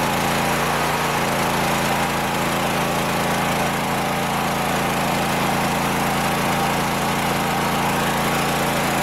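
Portable generator's gasoline engine running at a steady speed, with an even drone.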